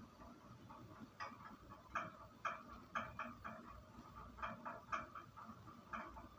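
Faint, irregular clicking: about ten short clicks spaced unevenly over a few seconds.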